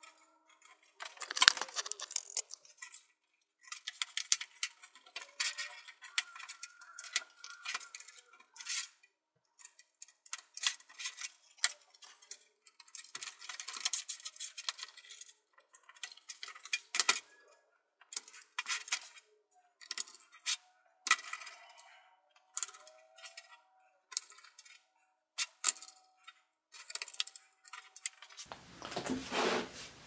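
Many small clicks, taps and clatter of plastic laptop parts being handled and pressed into place as a Lenovo ThinkPad X230T's palm rest and keyboard are refitted. A steady hiss comes in near the end.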